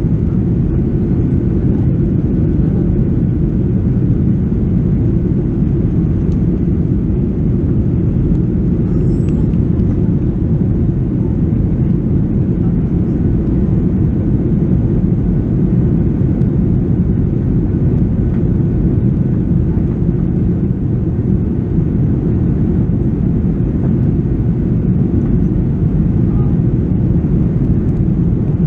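Steady low rumble of a Boeing 737-800's CFM56-7B engines and the rushing airflow, heard from inside the cabin at a window seat in flight.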